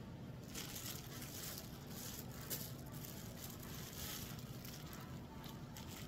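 Faint crinkling and rustling of the thin plastic bags around bunches of snap peas as they are handled and lifted, over a low steady hum.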